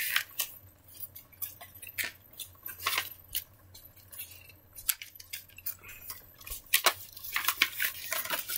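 Handling noises: scattered light clicks and rustles as a glossy paper magazine and plush toys are moved about by hand.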